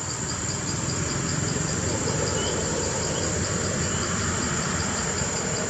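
Insects chirping: a short chirp repeating about five times a second over a steady high whine, with a continuous low rumble underneath.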